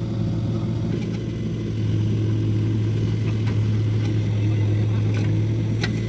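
Diesel engines of a JCB 3DX backhoe loader and a tractor running steadily as the backhoe digs and lifts a bucket of soil, the backhoe picking up a little about two seconds in, with a few faint knocks.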